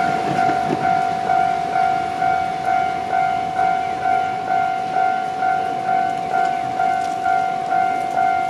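Japanese level-crossing warning bell ringing: a loud electronic tone struck a little over twice a second, each strike fading slightly before the next. It signals that a train is approaching the crossing.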